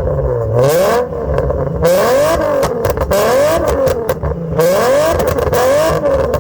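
Nissan 350Z's 3.5-litre V6 engine revving up and down over and over, its pitch rising and falling about one and a half times a second.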